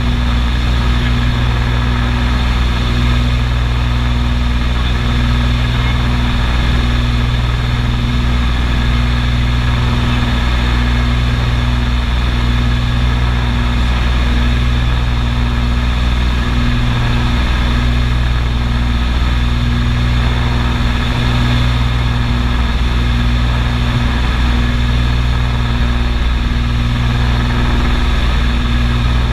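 Cabin drone of a Beechcraft Baron 55's twin piston engines and propellers in level cruise: a loud, steady low hum that holds one pitch throughout.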